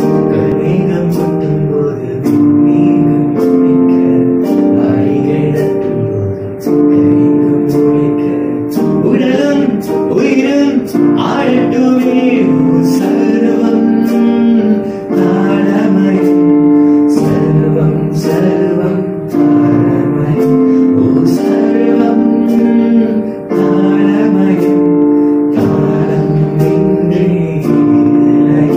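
Electronic keyboard playing sustained chords in a slow progression while a young man sings a Tamil song at times, over a steady beat of sharp ticks.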